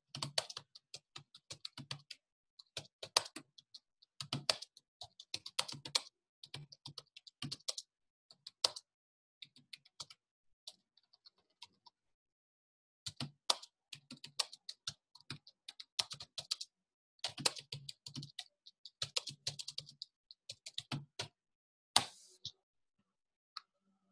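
Typing on a computer keyboard in quick runs of key clicks, with a pause of about two seconds midway and one louder key strike near the end.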